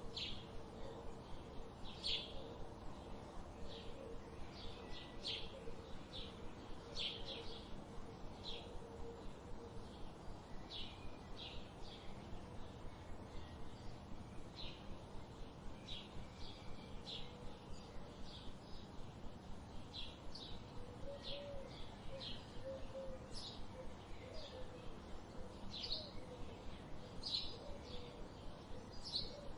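Small songbirds chirping, short repeated high chirps coming several times a second throughout, over a faint steady background hum.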